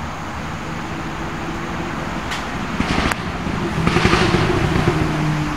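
Steady engine hum of a motor vehicle, growing louder in the second half, with a sharp click about three seconds in.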